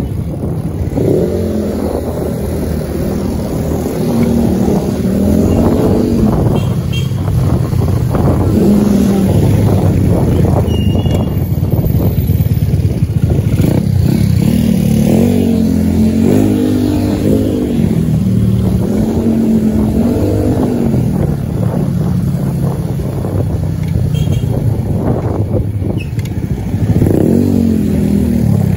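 Street traffic, with motor scooter and car engines running and revving so that their pitch rises and falls several times, over a steady low rumble.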